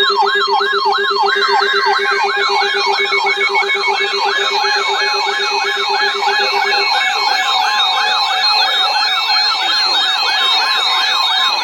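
Canadian emergency alert attention signal: an electronic siren-like tone sweeping rapidly up and down, about three sweeps a second, over a steady low buzzing tone that stops about halfway through.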